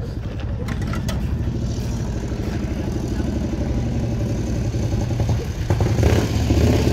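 1924 Moto Guzzi C4V's horizontal single-cylinder engine being spun up by an electric roller starter under its rear wheel, a rapid, steady mechanical chugging. It grows louder about six seconds in.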